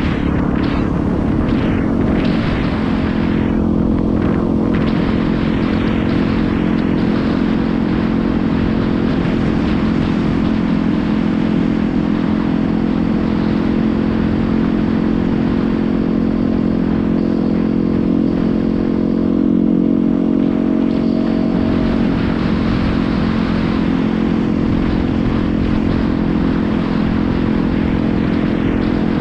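Yamaha WR250R's single-cylinder four-stroke engine running at a steady cruising speed, over a constant rush of wind and road noise.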